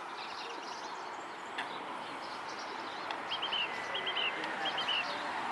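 Small birds chirping in quick runs of two or three short high notes over a steady outdoor background hiss.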